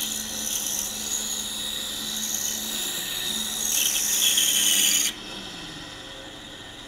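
Pegas bandsaw with a narrow number 9 blade cutting through a small wooden puzzle block: a steady hiss of the blade in the wood over the machine's hum. About five seconds in the blade comes out of the cut and the hiss stops suddenly, leaving the saw running free.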